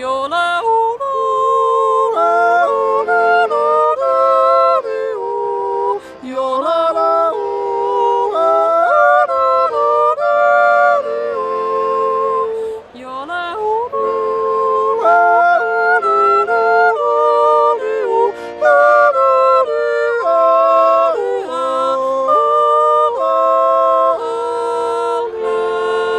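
Mixed Swiss yodel duet: a woman's and a man's voice singing the wordless yodel refrain together in harmony, with quick breaks and leaps in pitch between chest and head voice.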